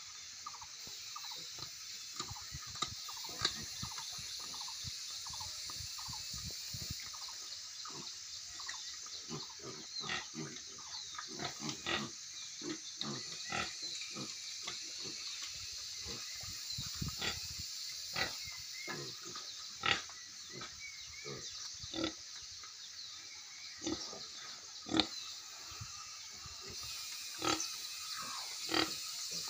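Young black pigs feeding from a basin: many short, irregular grunts and chewing noises, with a steady high hiss behind them.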